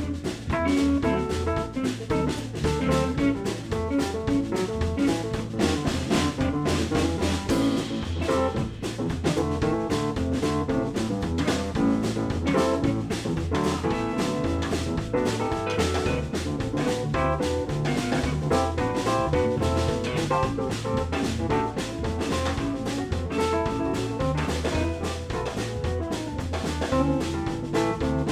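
Live blues band playing an instrumental passage with no vocals: drum kit keeping a steady beat under bass, electric guitar and keyboards.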